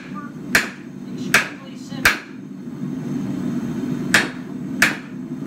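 Blacksmith's hand hammer striking a hot steel bar on an anvil: sharp blows about two-thirds of a second apart, pausing for about two seconds midway, over a steady low hum.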